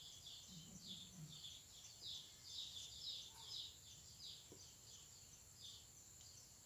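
Faint bird chirping: a quick run of short high chirps, a few a second, thinning out near the end.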